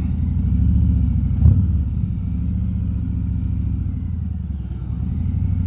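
Harley-Davidson Road King Special's V-twin engine running at a steady low note while riding, with one brief knock about a second and a half in.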